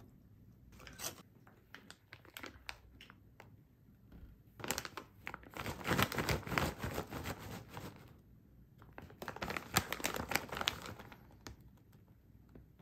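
Crinkling of a plastic snack bag being handled and turned over. A few light crackles come first, then two spells of loud crinkling, about five seconds in and again about nine seconds in.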